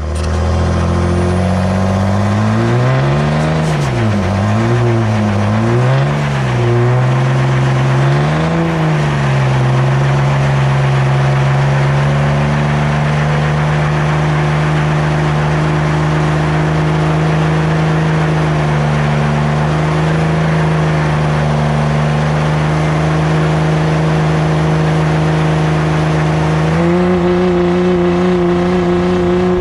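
A vehicle engine revs up and down several times, then runs at a steady high speed for a long stretch, stepping up a little near the end.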